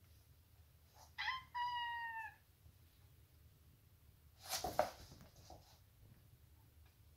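Maine Coon cat giving a high-pitched two-part meow, a short note then a longer one falling slightly in pitch, followed a couple of seconds later by a brief, louder, noisy burst.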